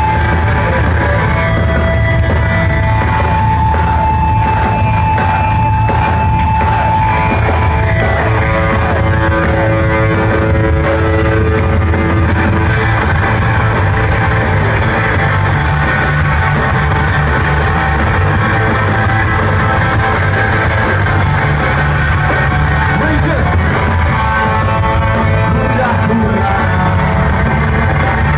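Live rock band playing on stage, with electric guitars, bass and drums. Sustained guitar notes ring out over a steady, loud band sound.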